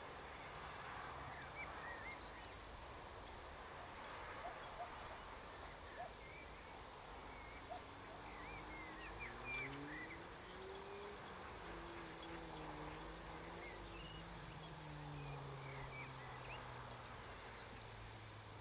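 Small birds chirping in short, scattered calls over faint field ambience. From about seven seconds in, a distant engine hum rises in pitch and then slowly falls away.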